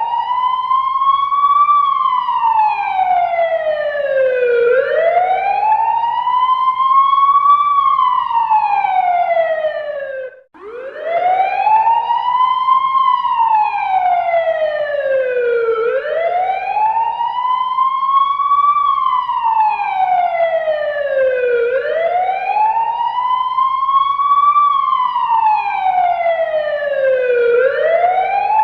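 Fire engine siren sounding a slow wail, sweeping up for about three seconds and back down for about three, over and over. About ten seconds in it cuts out for a moment and starts again on a rising sweep.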